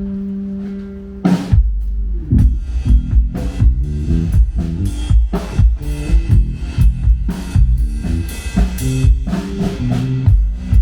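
Live band playing at a sound check: a held bass guitar note, then a loud crash about a second in as the drum kit comes in, with kick, snare and bass playing a steady rock beat together.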